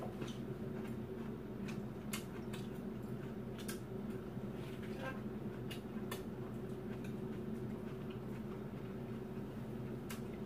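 Steady low hum of a room air conditioner running on a strong setting, with scattered light clicks and taps of chopsticks and metal utensils against bowls and the pan during eating.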